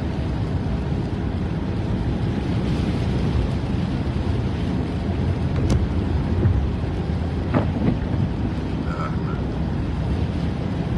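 Steady low rumble of a car's tyres and engine, heard from inside the cabin while driving on a wet road in rain, with a few faint taps about halfway through.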